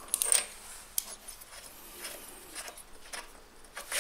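Socket wrench and spark plug being handled on a small mower engine while the plug is unscrewed: a few short metallic clicks and scrapes, the loudest just after the start, another about a second in and another near the end.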